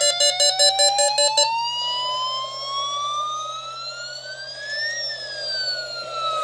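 Weather alert radio receivers sounding their alarm for a NOAA Weather Radio weekly test: rapid electronic beeping, about four beeps a second, that stops about a second and a half in, over a siren wail that rises slowly to a peak about five seconds in and then falls.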